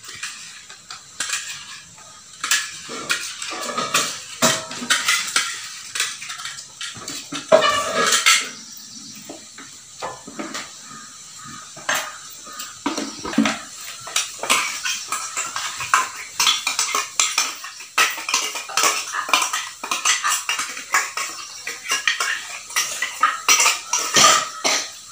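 Steel spoon scraping and clinking against a steel mixer-grinder jar and its lid, scooping out wet ground chutney paste, in many short irregular strokes.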